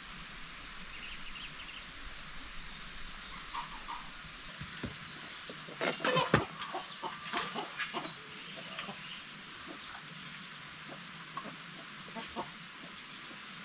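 Chicken clucking and squawking in a short, loud flurry about six seconds in, with scattered smaller clicks after it and faint bird chirps.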